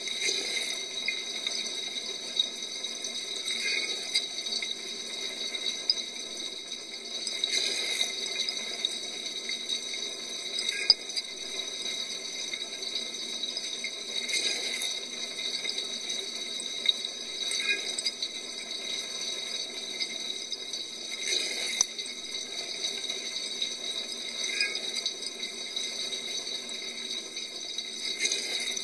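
Water spraying inside a dishwasher during its wash cycle, with a steady spray and a louder splash that comes back about every three and a half seconds, stronger on every other pass.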